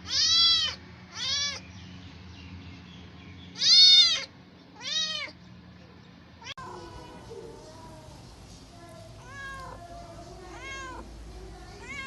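Cats meowing. Four loud, arching meows come in the first five seconds or so. After an abrupt change in the background about six and a half seconds in, several fainter meows follow over a low murmur.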